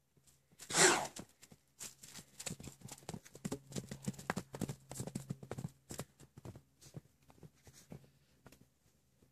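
Hoofbeats of horses galloping on grass pasture: a quick, irregular run of thuds that thins out after about six seconds. About a second in comes a loud breathy rush of noise, the loudest sound.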